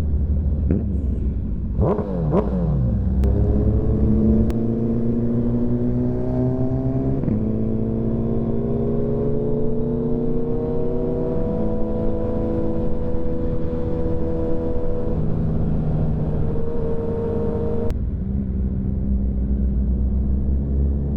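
Motorcycle engine pulling through the gears at speed, its pitch rising slowly and then dropping back at each of several upshifts, over road and wind rumble.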